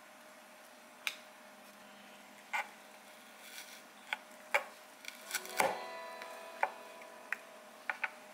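Sharp taps and clicks of a plastic vegetable cutter being pressed through thin potato slices onto a wooden cutting board, about a dozen in all. About five and a half seconds in, an oven's short electronic melody chimes, signalling that preheating is done.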